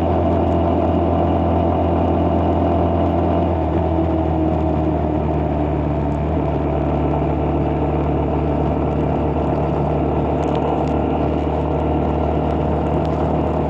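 A vehicle's engine running steadily at cruising speed, a continuous low hum with road noise. Its tone changes slightly a few seconds in.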